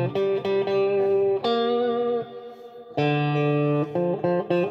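Electric guitar played through an amplifier: held chords and single notes, a brief pause in the middle, then quick alternating two-note figures near the end. Its pickups, backed with 5 mm neodymium magnets behind the pole pieces, are now wired in phase and have plenty of output.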